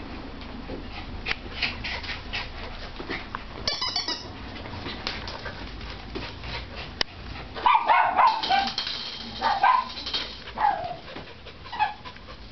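Miniature schnauzer puppies playing rough: many short clicks and scuffles in the first half, then a run of high yips and whines from about two thirds of the way in, with a couple more near the end.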